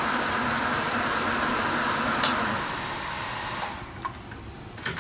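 Bridgeport vertical mill spindle running in high gear, a steady whir and hum. After about two and a half seconds it winds down to quiet, with a click midway and a couple of clicks near the end.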